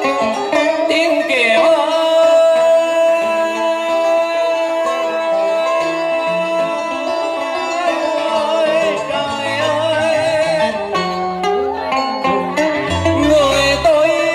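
A man singing a Vietnamese vọng cổ melody to plucked-string accompaniment. A long steady tone holds through the first half, then wavering, ornamented phrases follow.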